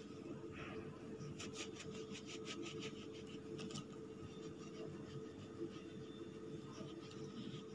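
Knife sawing through a soft burger bun to cut it in half: a quick run of faint scraping strokes between about one and a half and four seconds in.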